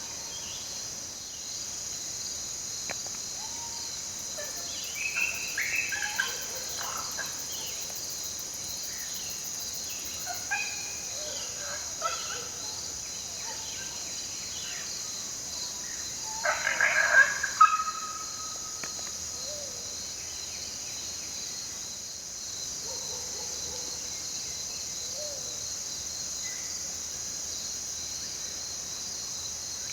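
Recorded coyote pup howl (a 12-week-old lost pup) played from an electronic predator caller: several short groups of high, wavering howls and yelps, the loudest a little past the middle, over a steady insect chorus.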